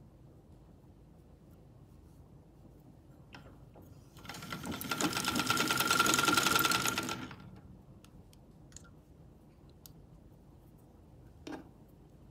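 Vintage Singer sewing machine running briefly while winding thread onto a spool: a fast, even whirring rattle with a steady high whine. It starts about four seconds in, builds for a couple of seconds and stops about three seconds later. A short knock comes near the end.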